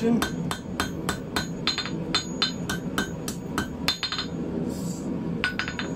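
Hand hammer striking hot 10 mm round steel bar on the anvil in quick, light blows, about three to four a second, cleaning up the transition of the taper. The blows stop for about a second near the end, then start again.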